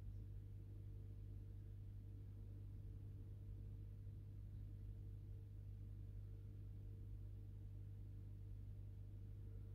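Aquarium equipment, such as a pump or filter, running with a faint, steady low hum.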